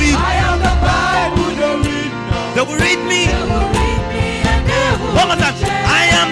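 Live gospel music from a church choir and band: singing voices with wavering, sliding pitch over a steady drum beat and bass.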